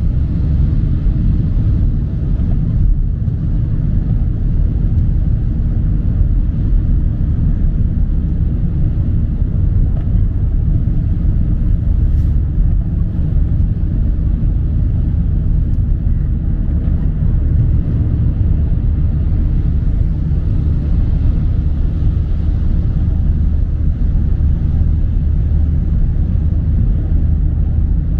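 Steady low road and engine rumble of a car driving on a wet highway, heard from inside the cabin.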